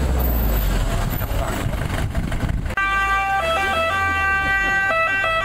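An ambulance driving close by, its engine and tyres giving a rumbling noise. After an abrupt cut, about three seconds in, its electronic siren sounds as a steady multi-tone note that dips briefly in pitch a few times.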